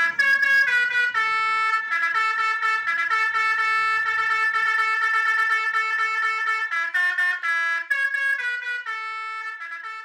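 Telolet horn on an odong-odong mini train playing a melody of held notes that step up and down in pitch, growing fainter over the last couple of seconds as the train moves off.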